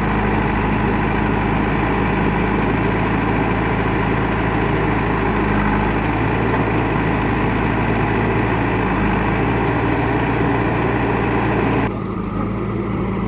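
Heavy diesel engine running steadily. The sound drops abruptly in level near the end.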